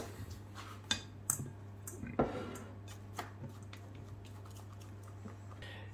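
A few faint clicks and taps of a glass mixing bowl and silicone spatula as thick cake batter is poured and scraped into a glass baking dish, then only a steady low hum.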